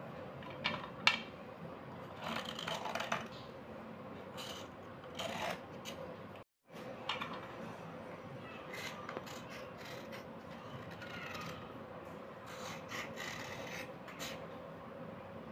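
Knife blade scraping along slate pencils in irregular strokes, with a sharp click about a second in. The sound drops out completely for a moment about six seconds in.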